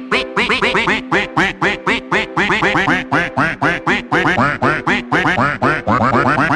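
Rapid run of duck-like quacks, about seven a second, set in a rhythm over backing music with a held note.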